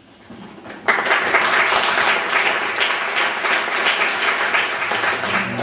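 Audience applauding, starting abruptly about a second in and holding steady: a dense patter of many hands clapping.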